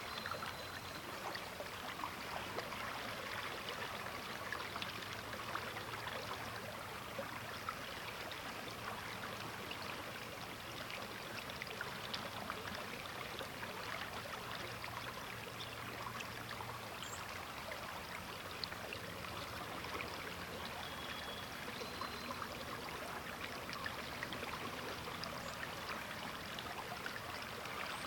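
Sturgeon River water flowing: a steady rush with a fine, splashy gurgle.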